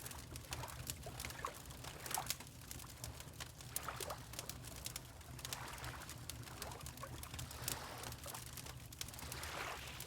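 Fireplace crackling with scattered sharp pops over a steady low rumble, mixed with water lapping in soft, swelling swishes.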